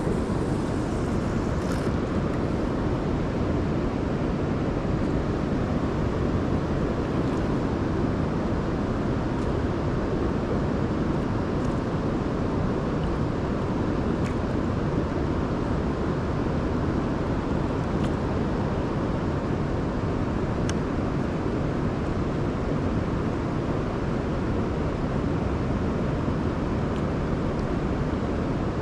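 Steady rushing of river current, an even unbroken wash of water noise.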